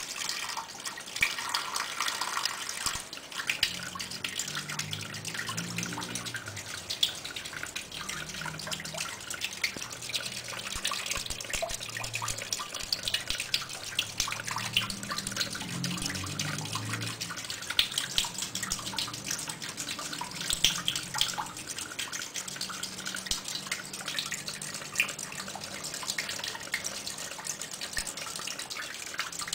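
Water running from a hose and splashing onto a small homemade bottle turbine, a steady hiss broken by irregular splashes and drips. A low, uneven hum sits underneath from a few seconds in.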